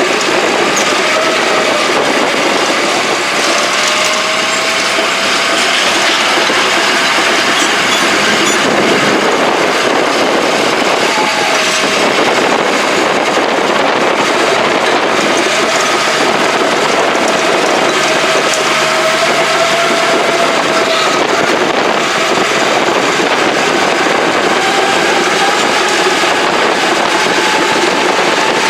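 Heavy diesel equipment engine running steadily and loudly, with a faint whine that wavers slightly in pitch.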